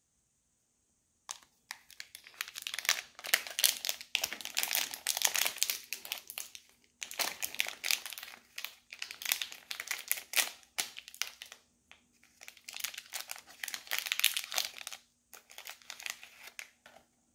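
Crinkly plastic snack wrapper being handled and torn open by hand: dense crackling starting about a second in, in several bouts with brief pauses between them.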